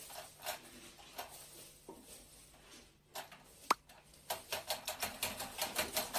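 Dry rice grains spilled on a wooden floor crackling and skittering as a cat paws and scrabbles through them: a string of short scratchy clicks that gets busier near the end, with one sharp tick about halfway through.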